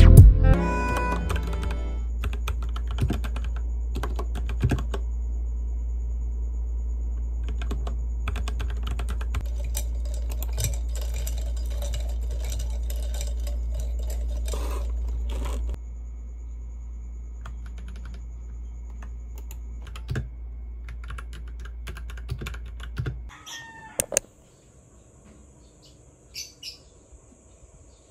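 Typing on a Royal Kludge mechanical keyboard: a dense run of key clicks that thins to a few scattered clicks about halfway through. A short clatter comes near the end.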